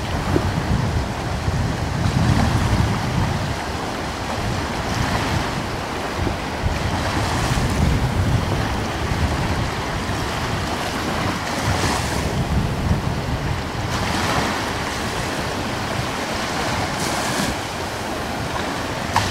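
Ocean surf ambience: a steady wash of waves, swelling and easing every few seconds.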